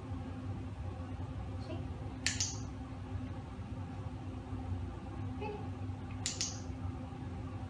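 Two sharp clicks about four seconds apart, each a quick double click, over a steady low hum.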